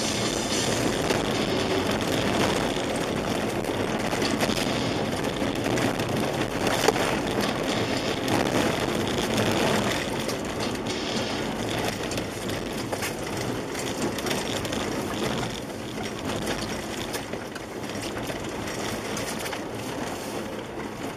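Cabin sound of a Skoda Yeti 1.8 DSG driving fast on a snow-packed, icy track: a steady rumble of tyres over rutted snow mixed with engine noise. There is one sharp knock about seven seconds in, and the noise eases a little in the second half as the car slows.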